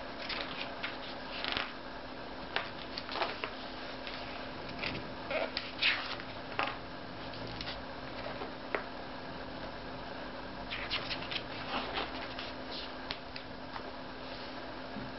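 Pages of a large hardcover art book being turned and handled: a scattering of short paper rustles and swishes, with a faint steady hum underneath.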